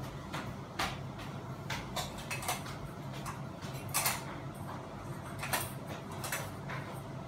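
Irregular metallic clicks and clinks as a Fanimation Benito ceiling fan's motor housing is handled and fitted up onto its ceiling mounting bracket, the loudest knock about four seconds in. A steady low hum runs underneath.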